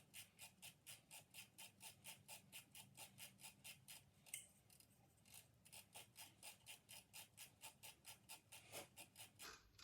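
Faint, even clicking, about four clicks a second with a brief pause a little before halfway, as the motor of a KitchenAid Professional 550 HD stand mixer is twisted by hand. The mixer's blade has stopped turning, a fault the owner traces to ground-up worm and follower gears.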